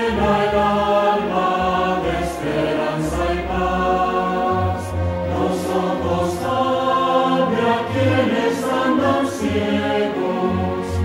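A choir singing a hymn with musical accompaniment.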